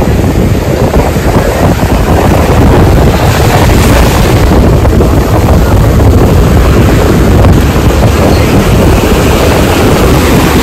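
Strong sea wind buffeting the microphone, a loud, steady rumble, with breaking surf behind it.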